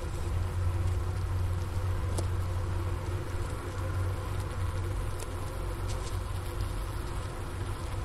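Honeybee colony wintering in its hive, heard close up from the hole in the inner cover: a steady low hum of the clustered bees with a few faint ticks.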